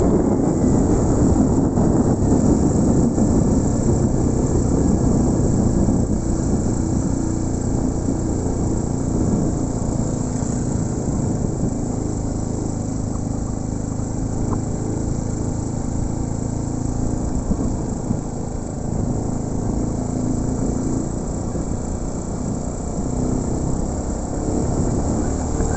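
Motorcycle engine running at a steady cruise with road and wind noise, easing slightly in level now and then.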